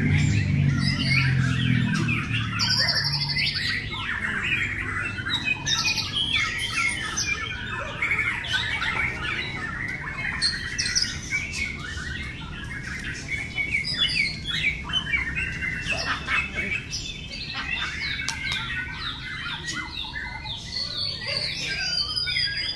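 Several caged white-rumped shamas (murai batu) singing at once in competition: a dense chorus of overlapping, rapidly varied song phrases. A low background rumble sits under it in the first few seconds.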